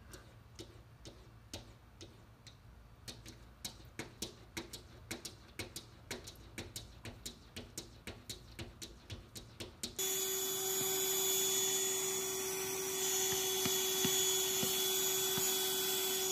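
A cat's paw tapping against window glass: a series of sharp ticks that come faster, a few a second. About ten seconds in, a cordless handheld vacuum is running with a steady whirring hum and a constant whine.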